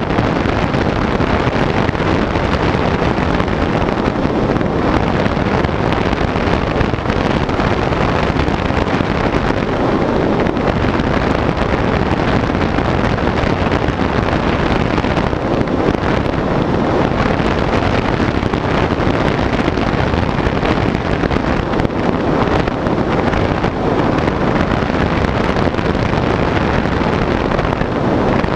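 Steady, loud wind rush buffeting the microphone of a camera mounted on a foam FPV plane in flight.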